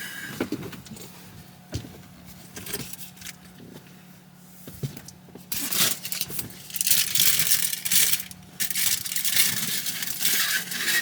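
Crinkling and rustling, with rattles and clicks, as bread rolls are handled and put into a small oven to warm. The rustling comes in several long bursts in the second half, over a steady low hum.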